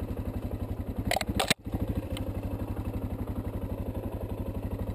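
Suzuki DR650's single-cylinder four-stroke engine idling with an even, steady low pulse, with a few brief clattering knocks about a second in.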